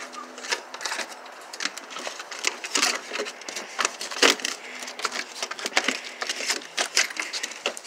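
Excited dogs scratching and pawing at the inside of a wooden kennel door and window: a rapid, irregular clatter of claws on wood and glass, with one louder knock about four seconds in.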